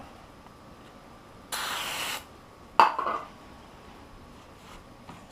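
One short spray hiss lasting under a second, then about a second later a sharp clack of a hard object set down, ringing briefly.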